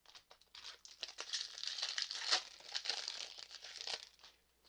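Foil wrapper of a Pokémon card booster pack crinkling and crackling as it is handled and torn open by hand, starting about half a second in, loudest midway and dying away near the end.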